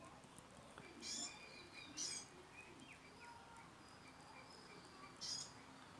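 Faint outdoor ambience with birds chirping. Three short, louder high-pitched sounds come about a second in, at two seconds, and near the end.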